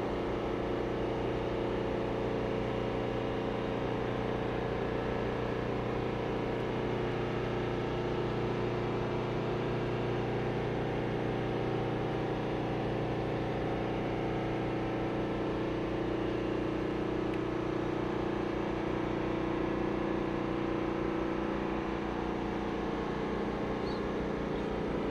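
Container ship's engine and propeller running during anchoring: a steady machinery drone with several held low tones over a haze of churning water.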